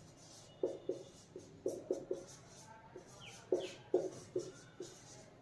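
Marker pen writing on a whiteboard: a run of short, faint strokes and taps, with a couple of brief squeaks of the tip past the middle.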